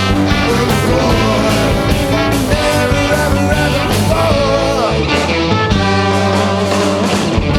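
Student jazz ensemble playing live, with singing over the band's guitars, bass and drums.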